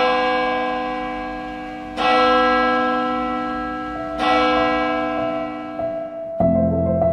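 Church bell tolling: one stroke every two seconds or so, each left to ring and fade away. Music comes in near the end.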